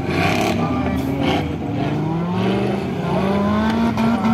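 Off-road competition vehicle's engine revving hard under load. Its pitch wavers up and down at first, then climbs steadily through the second half.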